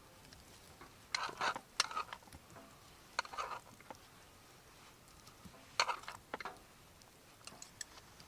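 Short clicks and rustles of things being handled, in small clusters a second or two apart.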